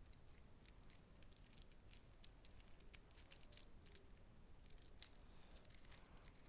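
Near silence, with faint scattered small clicks and rustles from handling small objects.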